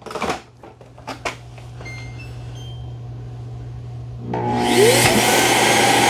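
Shark cordless stick vacuum clicking as it is seated onto its auto-empty charging base, followed by a low steady hum and a few faint short beeps. About four seconds in, the base's own vacuum motor kicks on and whines up to speed, running loudly as it sucks the debris out of the stick vacuum's dust bin.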